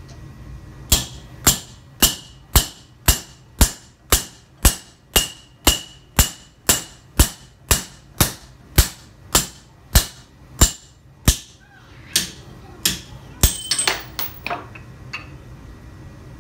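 A hammer striking the spine of a handmade steel knife, driving its edge through a half-inch steel bolt on an anvil: steady blows about two a second, each with a bright metallic ring. It ends with a few slower blows and a brief metallic clatter about thirteen to fourteen seconds in.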